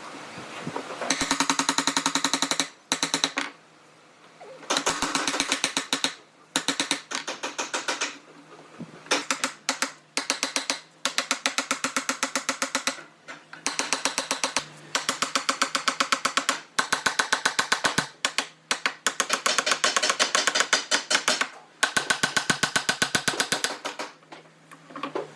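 A power tool running in repeated bursts of one to three seconds with short pauses between, each burst a fast, even hammering rattle.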